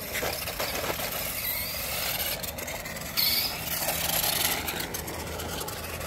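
Toy remote-control Dodge Charger car driving over concrete: its small electric motor and gears whirring and its plastic tyres rolling and rattling on the pavement.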